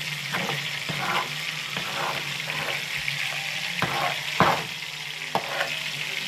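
Fried rice with soy sauce sizzling in a frying pan as it is stirred. A utensil scrapes the pan in a handful of irregular strokes, the loudest about four and a half seconds in, over a steady low hum.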